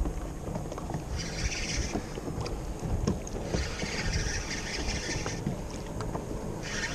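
Water noise around a kayak on a choppy sea: a steady low wash against the hull, with hissing rushes of a second or two that come back every couple of seconds, and a few small ticks.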